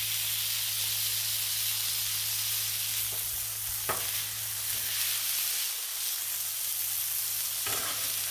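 Ground-beef slugburger patties sizzling on a hot Blackstone flat-top griddle as they are pressed flat with a metal spatula: a steady frying hiss with a low hum underneath. A brief click about four seconds in.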